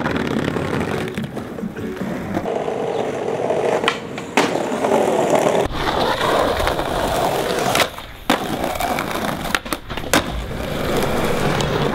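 Skateboard wheels rolling over stone paving, with several sharp clacks from the board scattered through.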